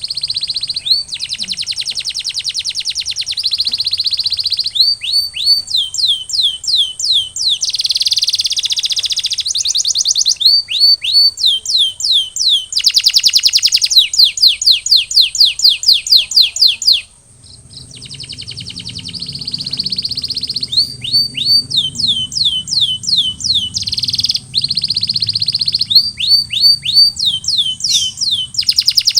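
Domestic canary singing: fast rolling trills alternate with runs of repeated downward-sweeping whistled notes, about three a second. The song breaks off briefly about seventeen seconds in, then resumes. A faint steady high tone runs underneath.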